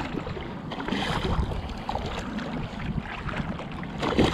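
Shallow water sloshing and splashing as a hooked red drum is drawn through the shallows toward shore, with a sharper, louder splash about four seconds in.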